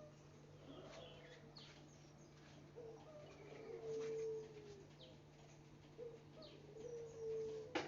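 Albino puter (Barbary) dove cooing, twice: a short note, then a long, steady held coo. Small birds chirp faintly in the background, and a sharp click comes near the end.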